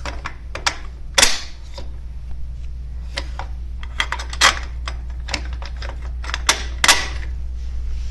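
Stainless steel bolts and hardware clicking and clinking against an aluminum hitch sleeve and tongue as the bolts are fitted through the holes. Irregular sharp metal clicks, with louder knocks about a second in and again near the end, over a low steady hum.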